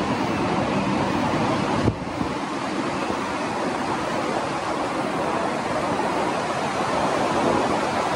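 Steady wind blowing across the microphone and through the leaves of the trees, an even rushing noise, with a short bump about two seconds in.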